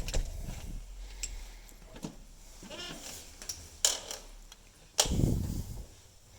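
Quiet handling and movement noises: scattered clicks and knocks, a short squeak about three seconds in, and a louder thump with rustling about five seconds in.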